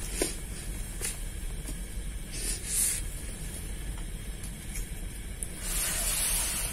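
Steady low outdoor rumble with a sharp click just after the start and a few short hissing rustles, the longest lasting about a second near the end.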